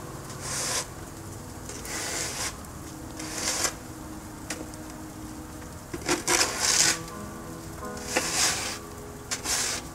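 Snow shovel scraping and pushing snow along a concrete walk in repeated short strokes, with a pause of a couple of seconds midway.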